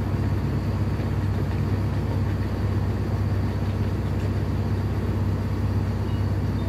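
Diesel engine of a DB Class 642 Desiro diesel multiple unit running steadily, a low, even drone.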